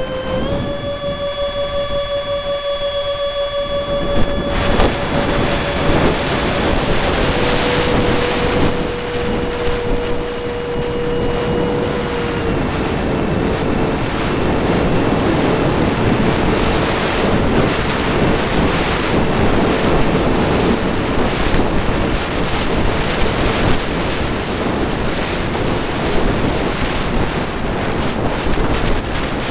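Electric ducted fan of a radio-controlled A-10 jet whining steadily under power. The pitch steps up just after the start and down twice later as the throttle changes, over a heavy rush of wind on the microphone.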